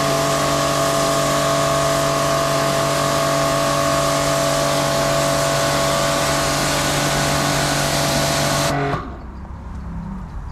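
Bormann Pro BPW 5000 electric pressure washer running and spraying: a steady, loud motor-and-pump hum over the hiss of the high-pressure jet, cutting off suddenly near the end.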